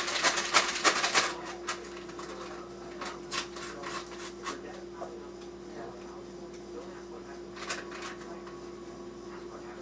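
Kitchen clatter of utensils and dishes handled at a counter: a quick run of clicks and knocks at the start, then scattered single clicks, over a steady hum.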